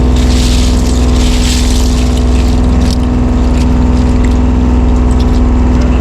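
A fishing boat's engine running steadily with a loud, even low rumble and a constant hum. A brief hiss rises over it from about half a second to two seconds in.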